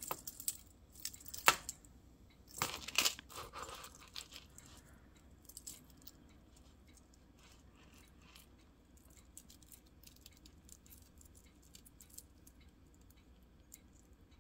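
Small clicks and rustles of a tangled pink beaded necklace being worked loose by hand. There are a few louder crinkling rustles in the first four seconds, then only faint scattered ticks of beads and chain.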